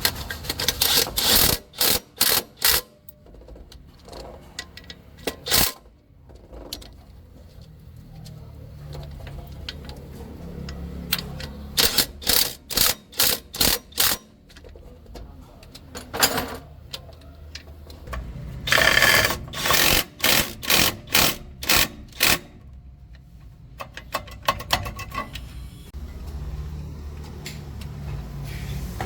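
Metal tool work on a truck's clutch assembly: three clusters of short, sharp bursts at about two a second, with single knocks between them, over a steady low rumble.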